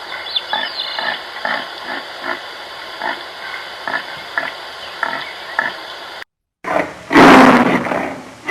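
Pig grunting in short repeated grunts, about two a second, over a steady background hiss. After an abrupt break near the end, a much louder animal roar starts.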